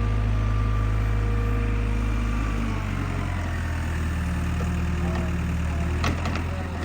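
Excavator's diesel engine running steadily; its note changes and drops a little about three seconds in. There is a sharp knock near the end.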